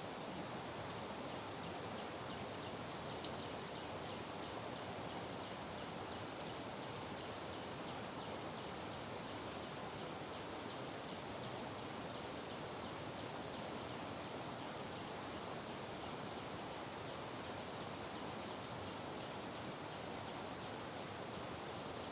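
Steady rushing of a fast-flowing river, with one short click about three seconds in.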